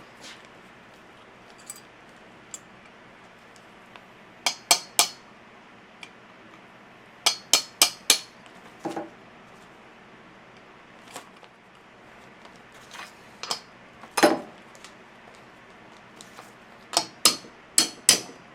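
Hammer tapping a punch to drive the roll pin of a truck's exterior door handle: sharp metallic clinks in short runs of three or four quick strikes, with single strikes and pauses in between.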